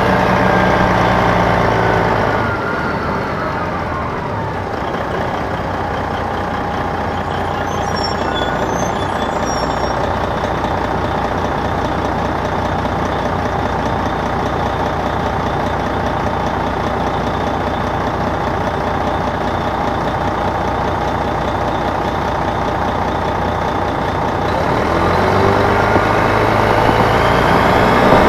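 Detroit Diesel Series 60 engine of an MCI D4000 coach, heard from the rear of the bus. Its pitch falls away over the first couple of seconds, then it runs lower and steady for about twenty seconds. Near the end it climbs in pitch and gets louder as the bus accelerates.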